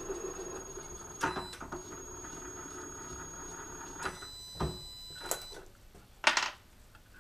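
Metal tools and parts being handled at a milling-machine vise: a few sharp clinks and knocks, the loudest about six seconds in, over a steady low hum that fades out about halfway.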